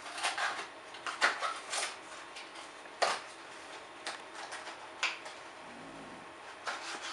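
Small cardboard product box for a Raspberry Pi 3 B+ being opened by hand: irregular scrapes, clicks and rustles of card as the flaps are worked open, the sharpest one about three seconds in.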